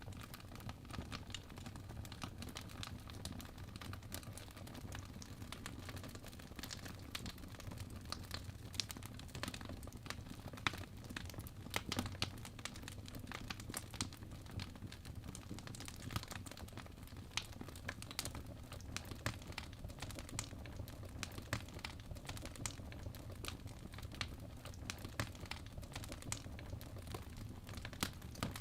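Wood fire burning in a fireplace: logs crackling with many small irregular pops over a steady low rumble of the flames, with a few sharper pops standing out about ten and twelve seconds in.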